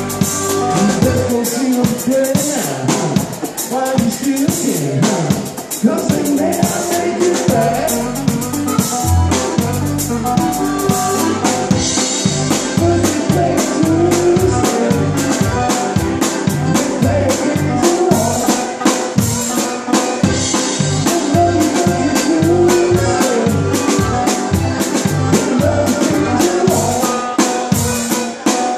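Live band music: a drum kit played with fast, steady strokes under banjo and accordion.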